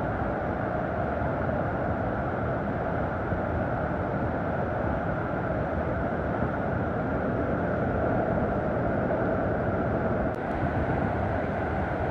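Waterfall rushing in a steady, loud roar.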